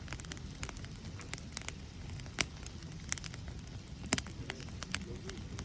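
Wood campfire in a fire-pit brazier crackling, with irregular snaps and pops over a low steady rumble of the flames; the two sharpest pops come about two and a half and four seconds in.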